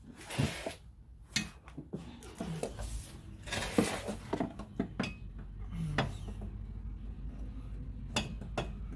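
Clicks, knocks and scrapes of hard plastic trim being pried and pulled loose by hand: the fuel-filler housing's plastic clips being worked free on a 2003 Honda Element. The sharp knocks come irregularly, with a brief scraping rasp near the start and another about four seconds in.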